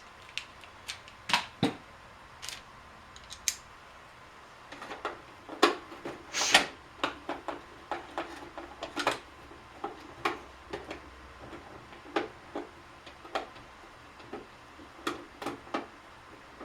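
Irregular clicks and taps of a screwdriver working screws out of the plastic housing of a Keurig coffee maker, sparse at first and busier after about five seconds.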